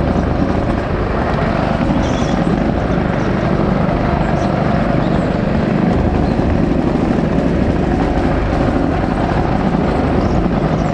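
Go-kart running on the track: a loud, steady motor drone with a heavy rumble, picked up by a camera mounted on the kart's body.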